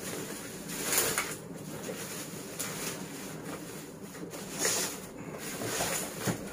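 Plastic bubble-wrap packaging rustling and crinkling as a box is pulled out of it, with louder crackles about a second in and twice near the end.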